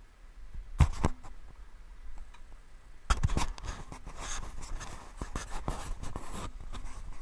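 Two sharp knocks about a second in, then some three seconds of dense scraping and rustling with small clicks, close to the microphone.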